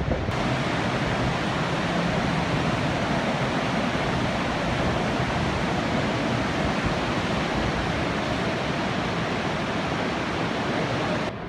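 Creek in flood, fast brown water rushing and churning past concrete bridge piers: a steady, unbroken rushing noise.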